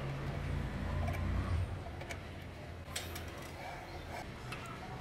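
Scattered small metallic clicks and ticks from hand work on a bench grinder motor's end cap, with a screwdriver on the end-cap screws. The sharpest click comes about three seconds in, and a low rumble runs through the first second and a half.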